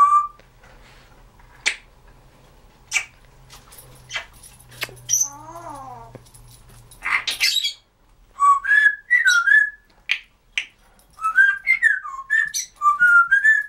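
Timneh African grey parrot making a few sharp clicks and a harsh burst, then whistling a string of short notes that slide up and down through the second half.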